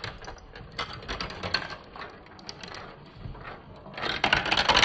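Glass marbles rolling and clattering down a plastic marble run track: a steady patter of small clicks and rattles that grows busier and louder near the end.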